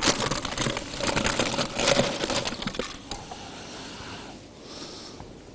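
Rustling and light pattering of shredded mozzarella cheese being scattered over béchamel pasta, thinning out about three seconds in.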